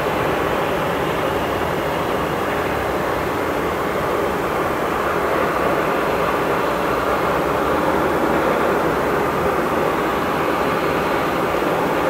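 Jet noise from a climbing Boeing 757-200 freighter's two Rolls-Royce RB211 turbofans at climb power after takeoff: a steady rushing roar with no breaks.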